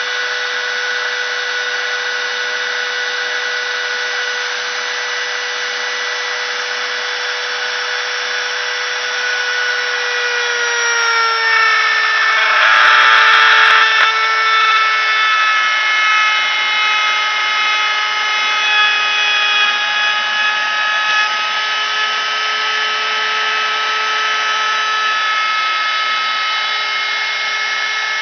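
CNC router spindle whining steadily as it cuts. About ten seconds in the pitch drops slightly and a louder, rougher cutting noise swells for a couple of seconds, then the steady whine carries on a little lower.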